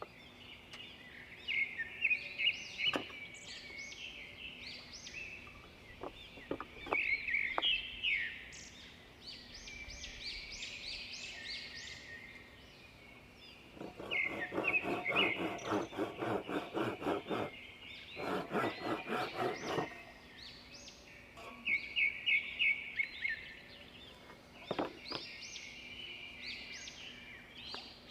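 Small birds chirping and calling repeatedly. About halfway through come two stretches of rapid rasping strokes, each a few seconds long, over a faint steady hum.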